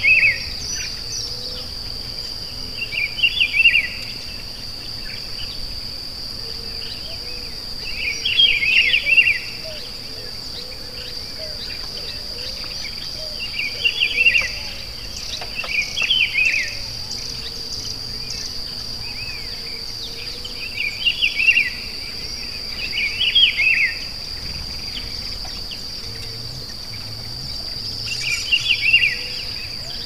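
Steady, high-pitched insect drone, like cicadas or crickets, with a songbird repeating a short phrase of quick notes every few seconds.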